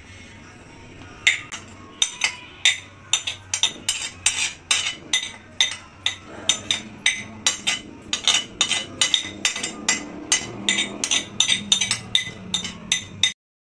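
Plastic flour sieve shaken over a plastic mixing bowl to sift flour, knocking against the bowl in quick, regular taps about three a second; the tapping cuts off suddenly near the end.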